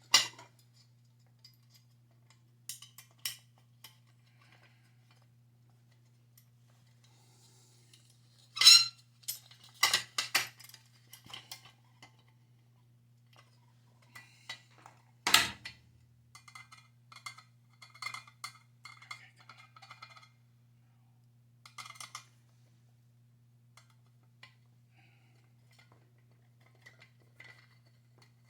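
Scattered metallic clinks and taps of screws and a screwdriver being handled and driven back in on a gas water heater's sheet-metal burner cover, with two louder knocks partway through. A faint steady low hum runs underneath.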